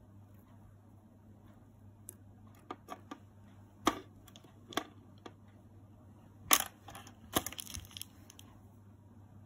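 Small hard objects handled and set down on a tabletop: a scattering of sharp clicks and knocks, the loudest about six and a half seconds in, followed by a quick run of taps, over a faint steady low hum.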